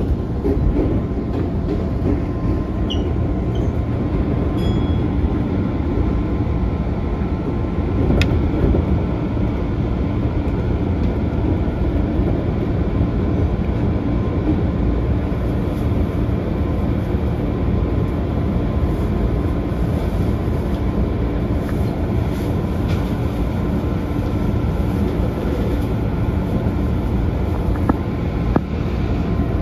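JR 205-series electric train running along the track, heard from inside the cab: a steady low rumble of wheels and running gear with faint steady motor tones and a single sharp click about eight seconds in.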